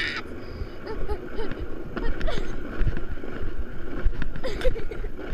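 Grass sledge rumbling and jolting over the grass at speed, with wind buffeting the body-mounted microphone. The rider's open-mouthed scream cuts off just after the start, and a few short vocal sounds come through the rattle.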